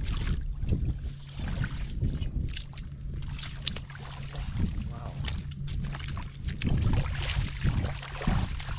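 Bare hands sloshing and squelching through shallow muddy water, groping in the mud with irregular splashes, over wind buffeting the microphone.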